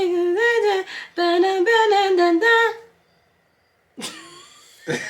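A person humming or singing a wordless tune in a high voice: two long phrases of held notes that step up and down. It stops about three seconds in, and after a short pause a brief vocal sound follows near the end.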